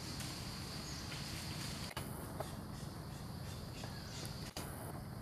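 Steady high-pitched insect drone over a low background rumble, with two brief dropouts about two and four and a half seconds in.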